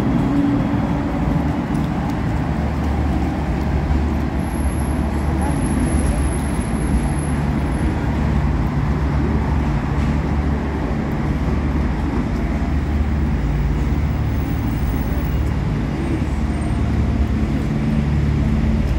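Steady city traffic noise at a tram stop with a low hum. At the start a tram moves off alongside the platform, its motor tone ending within the first second.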